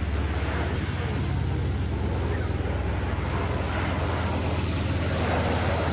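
CP-140 Aurora's four Allison T56 turboprop engines running as it flies past low overhead: a steady low hum with a broad rushing noise over it.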